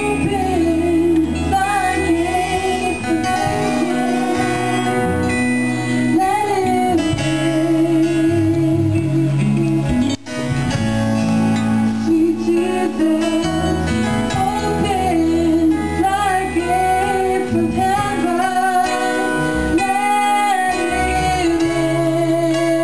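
A woman singing a worship song into a microphone with vibrato, over guitar accompaniment. The sound briefly drops out about ten seconds in.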